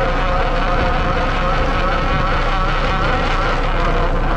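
Crab boat's engine and pot hauler running steadily while a trap line is hauled through the boom's block. The drone carries a wavering whine.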